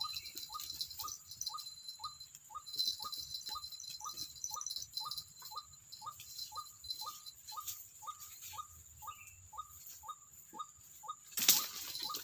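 White-breasted waterhen calls: a short falling note repeated very evenly, about two or three times a second, over a steady high-pitched buzz. Near the end a sudden loud rustling crash breaks in.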